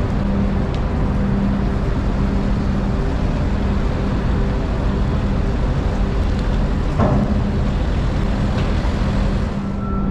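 Steady engine and machinery noise with a constant low hum, typical of a tow tractor pulling a helicopter at a dockside ship ramp; a single sharp knock about seven seconds in.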